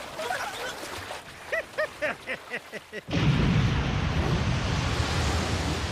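Cartoon soundtrack: a man laughing in quick, repeated syllables. About three seconds in, a sudden loud, deep rushing rumble cuts in and carries on.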